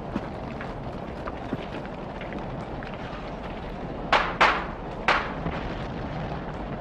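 Gunfire sound effect over a steady street ambience: two sharp shots close together about four seconds in, then a third a moment later.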